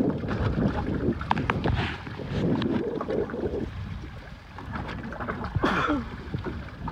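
Wind buffeting the microphone and water moving around a small boat, with scattered light knocks.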